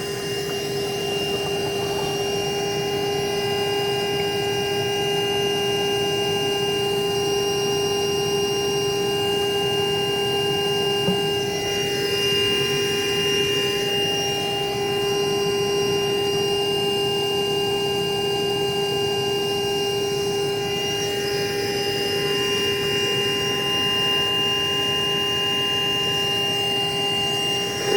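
Electric motor running steadily: a constant-pitched drone with an airy rush, no change in speed.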